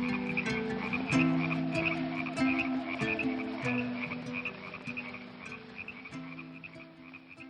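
Frogs croaking in a chorus of repeated calls over held low musical notes, the whole fading out.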